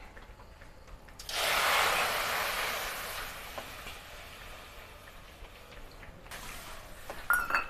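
Water poured from a bowl into a cooking pot, a splashing pour that starts suddenly about a second in, is loudest at first, then tapers off over a few seconds. A short light clink of kitchenware near the end.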